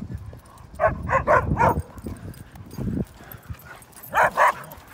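Dogs play-fighting: a quick run of four short barks about a second in, low scuffling in between, then two more barks near the end.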